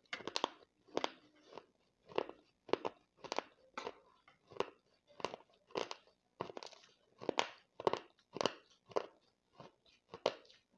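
A person chewing a mouthful of clay-pot powder and crumbles, making a gritty crunch about twice a second in a steady rhythm.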